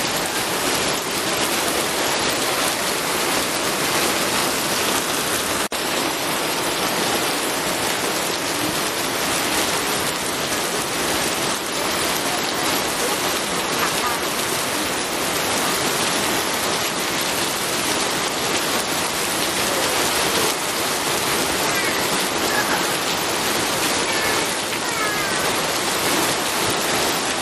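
Steady, even rainfall, with a momentary dropout about six seconds in.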